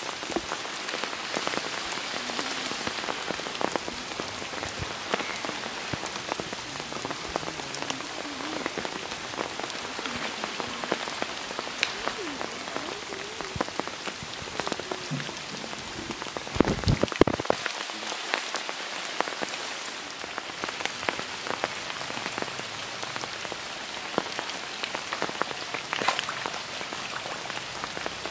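Steady rain falling on a pond's surface, an even hiss dotted with many separate drop ticks. About two-thirds of the way through comes one brief, louder knock.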